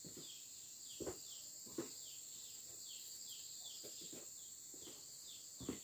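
Steady high drone of insects with a bird's repeated short chirps, each falling in pitch, several a second. Three brief soft knocks stand out, about a second in, just under two seconds in, and near the end.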